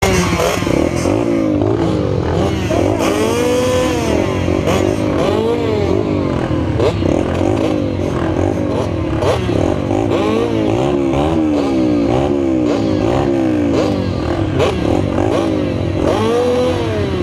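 A gate full of small two-wheel mini dirt bikes revving at the motocross start. Several engines blip their throttles up and down over each other in a constant, shifting din while the riders wait for the gate to drop.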